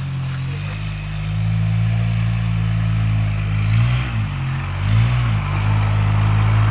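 A 700 four-wheel-drive ATV's engine running steadily. It revs down and back up twice, about four and five seconds in.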